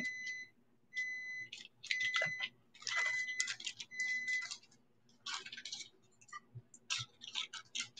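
Typing and clicking on a keyboard, in short bursts. A steady high beep sounds over each of the first five bursts, and after about five seconds only scattered clicks are left.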